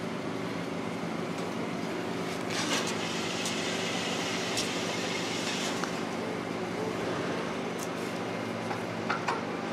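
Steady low mechanical hum in the background, with a few light metallic clicks as a castle nut and washer are threaded by hand onto a truck's front wheel spindle, and a stretch of rustling hiss a few seconds in.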